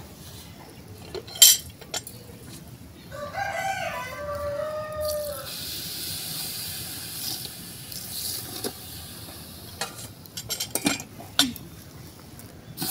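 A sharp metallic clink about a second and a half in, then a rooster crows once in the background. Water poured from a steel bowl onto hot roasting sesame seeds in an aluminium pot hisses for several seconds. Near the end, a wooden spoon knocks and scrapes against the pot as the seeds are stirred.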